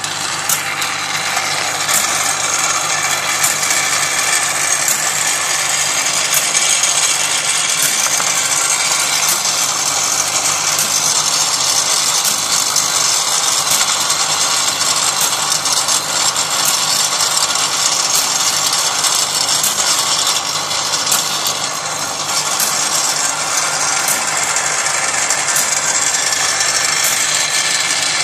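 Small electric motor of a Lionel toy-train belt conveyor loader running and driving its belt. It starts at the beginning and keeps a steady mechanical whir, with many small clicks through it.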